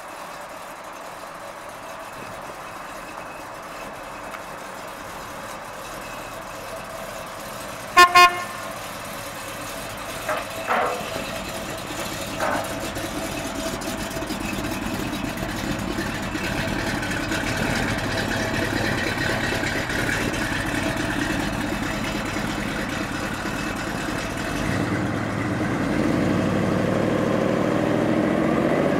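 A 1972 Chevrolet Chevelle's 454 V8 running steadily, growing louder near the end as the car moves off. A car horn toots twice in quick succession about eight seconds in.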